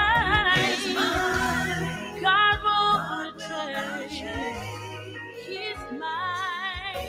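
Gospel worship song: a solo voice singing long held notes with strong vibrato over sustained low accompaniment.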